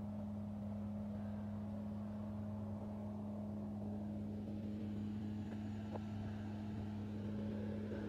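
Vehicle engine running steadily, a constant low hum with no change in pitch.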